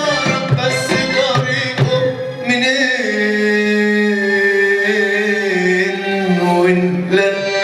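Live Arabic ensemble with a male singer, violin, accordion and hand drums. Hand drums beat along for about the first three seconds, then drop out while the singer holds a long, wavering note over sustained accompaniment.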